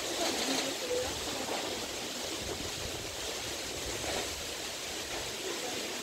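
Gusty storm wind rushing through palm fronds and trees: a steady rushing noise with an uneven low rumble underneath.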